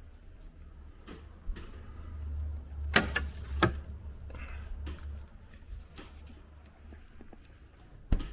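Fridge door pulled open, a plated, cling-film-wrapped chicken set down on a shelf with two sharp clinks about three seconds in, and the door shut with a knock near the end.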